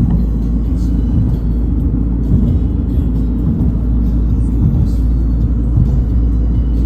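Steady low rumble of a car driving, with music playing over it.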